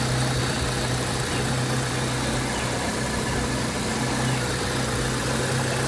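Honda Civic EF's four-cylinder engine idling steadily with an even low hum, warming up while its cooling system is bled of air.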